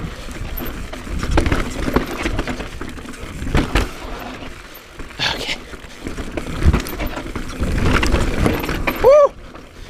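2019 Transition Smuggler 29er trail bike ridden down a rough, rocky descent: tyres rolling and skidding over rock and dirt under a steady rumble, with the bike's parts rattling and knocking at every hit.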